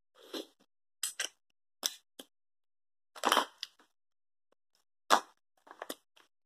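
Wet mouth sounds of mussels being sucked off their shells and chewed: a series of short separate slurps and smacks, with a longer slurp about three seconds in.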